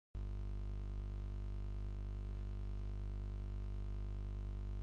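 Steady low electrical mains hum with many overtones, cutting in abruptly out of dead silence a moment in and holding unchanged.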